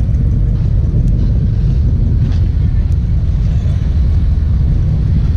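Steady low rumble of car engines as cars drive in slowly, mixed with wind buffeting the microphone.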